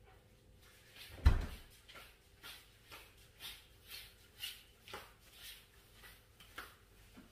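A single thump about a second in, followed by a run of light knocks about twice a second.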